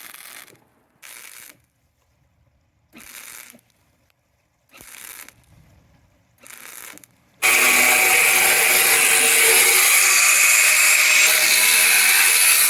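Five short bursts of hiss a second or two apart, then a loud power tool starts abruptly about seven seconds in and runs steadily.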